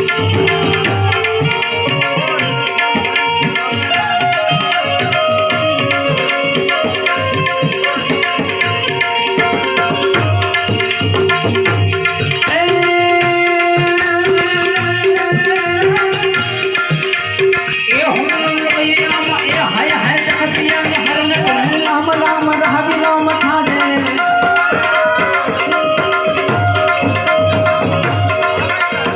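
Instrumental break in Indian devotional music: a melodic lead over a steady hand-drum rhythm, the melody shifting to a new phrase about eighteen seconds in.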